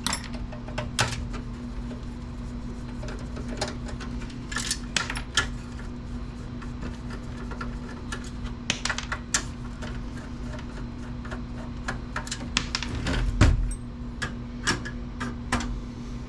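Irregular clicks, taps and knocks of tools and metal parts as a desktop computer's power supply is unscrewed and worked loose from its case, with a heavier thump about 13 seconds in, over a steady low hum.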